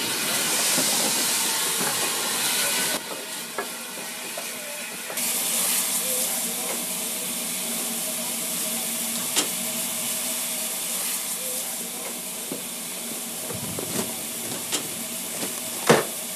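Steam locomotive hissing steam in a loud, steady hiss that drops away for about two seconds early on and then resumes. A few sharp knocks sound over it.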